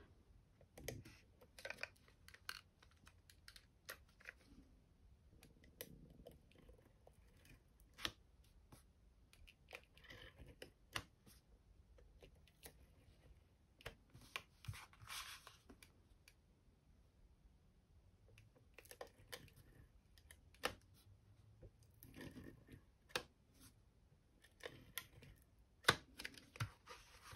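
Faint paper-handling sounds: scattered taps and clicks as card stock is pressed and folded, with several strokes about a second long of a Stampin' Seal+ tape runner laying adhesive along the card.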